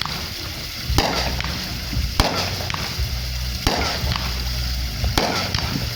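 Consumer fireworks going off: four sharp bangs about a second and a half apart, with scattered smaller crackles between them over a low rumble.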